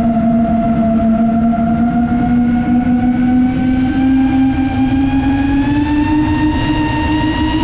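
FPV quadcopter's brushless motors and propellers whining steadily as it flies, the pitch rising slowly, over a rush of wind noise.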